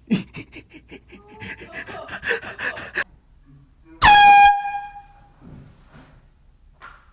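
Handheld air horn blasted once about four seconds in: a short, loud, steady single-pitched blare of about half a second that rings on briefly in the room. It is preceded by about three seconds of quick, short noises.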